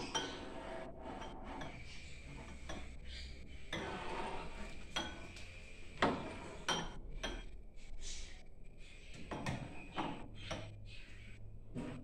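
Glasses and dishes clinking and knocking as they are set onto the shelves of a wall-mounted kitchen cabinet, in a string of short clinks with a sharper knock about six seconds in.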